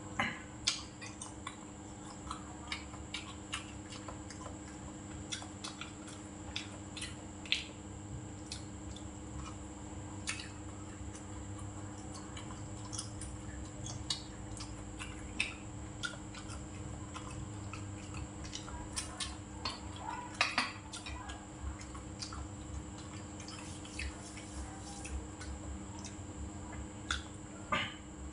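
Eating sounds: chopsticks clicking against ceramic bowls and plates, with chewing. The sharp clicks come scattered through, a few louder, over a steady low hum.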